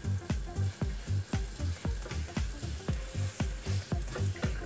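Chopped chilli and spices sizzling in hot oil in a frying pan, stirred with a spatula toward the end. Background music with a steady thumping beat, about three beats a second, is louder than the sizzle.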